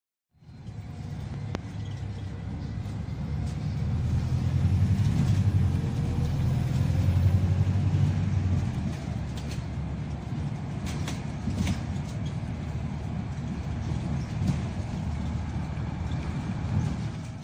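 Bus engine and road noise heard from inside a moving bus: a steady low rumble that swells about four seconds in and eases back after about nine seconds, with a few light rattles around ten to twelve seconds in.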